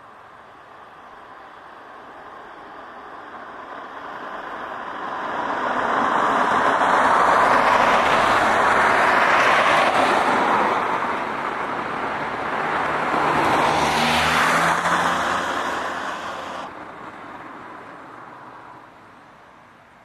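Road vehicles passing: tyre and engine noise swells over several seconds, peaks twice, and fades away near the end.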